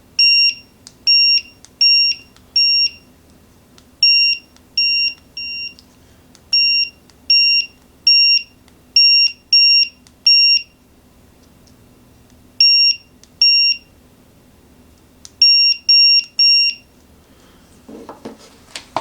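TickTime digital kitchen timer's electronic beeper sounding short, high-pitched beeps in irregular groups of three to six, about twenty in all, as its volume setting is stepped up and down.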